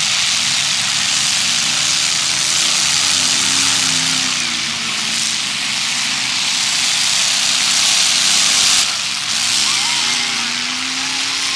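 Demolition derby cars' engines running and revving, their pitch rising and falling, over a loud steady rushing noise. The high rushing noise drops away sharply about nine seconds in.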